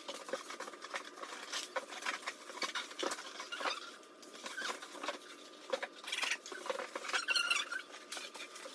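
Irregular light taps, clicks and scratchy rustles of objects being handled, with a denser cluster a little after the middle.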